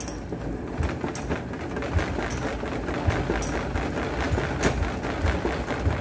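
The plastic spin basket of a hand-cranked manual portable washer turning, a steady rattling whir full of rapid clicks, as the wet laundry is spun to drive out the water.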